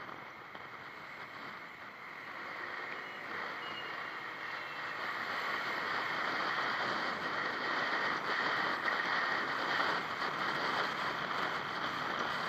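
Steady wind and road noise from a moving vehicle, picked up by a camera mounted on it. It grows gradually louder over the first several seconds as the vehicle speeds up, then holds steady.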